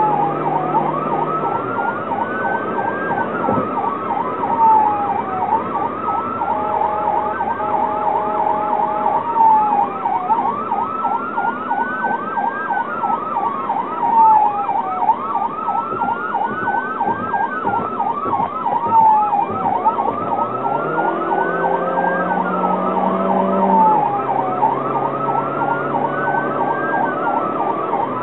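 Electronic emergency siren sounding continuously from inside the responding vehicle. A slow rising-and-falling wail repeats every few seconds over a fast repeating warble.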